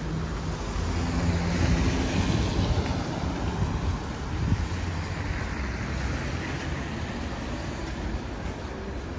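A motor vehicle driving past on the street: its engine drone and tyre noise swell to a peak about two seconds in, then slowly fade, over steady city traffic.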